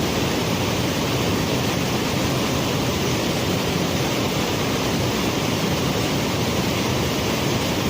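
Waterfall water rushing, a steady, unbroken roar of falling water.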